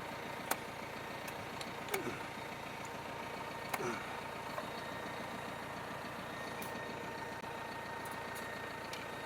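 Tractor engine idling steadily, with a few sharp metallic clinks from hitching gear being handled.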